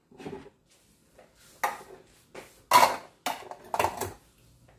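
Cookware clattering on a stovetop: several separate sharp knocks and clinks of pans and utensils, the loudest a little under three seconds in.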